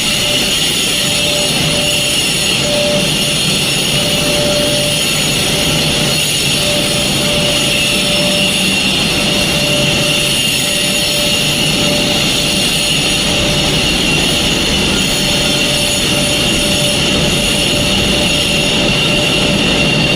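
Building fire alarm sounding a steady high-pitched tone during a smoke detector test, with a fainter lower tone that comes and goes, over a loud, steady mechanical rush.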